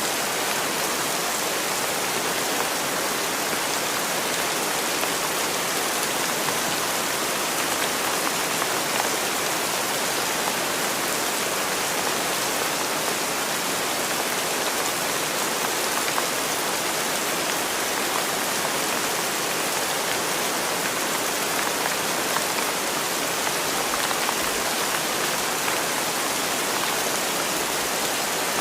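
Steady rain falling, an even hiss that holds the same strength throughout.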